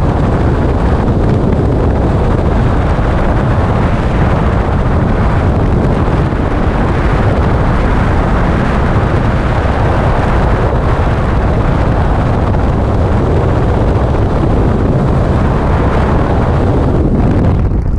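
Freefall wind blasting across a helmet-mounted camera's microphone: a loud, steady rush of air noise.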